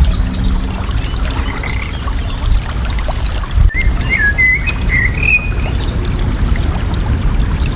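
Water trickling and pouring steadily, with a bird singing one short warbled phrase of quick rising and falling notes about halfway through.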